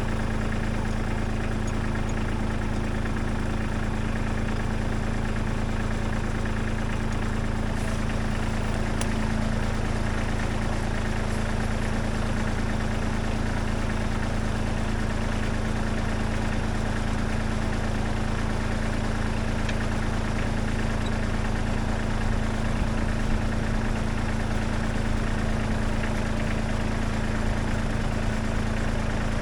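Kubota B-series compact tractor's diesel engine idling steadily.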